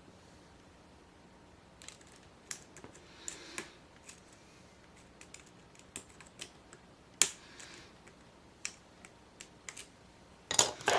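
Lock pick and tension wrench working the pin stack of a Yale-keyway pin-tumbler padlock with spool pins, on its last pin as the spool gives counter-rotation. Scattered small clicks and light scrapes, with a burst of louder clicks near the end.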